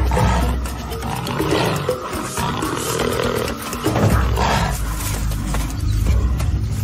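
Wild animals calling in several irregular bursts as spotted hyenas close in on cheetahs holding a kill, over a low steady music bed.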